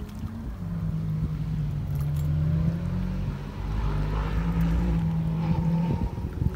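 A low, steady motor drone whose pitch shifts a few times.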